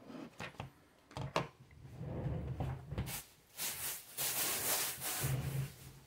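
Objects being handled and moved about: a few light knocks and clicks, then a longer stretch of rubbing and rustling.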